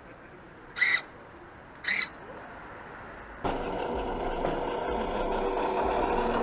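Servos of a radio-controlled lowrider truck working its suspension: two short whirs about a second apart, then from about three and a half seconds in a steady buzzing whir.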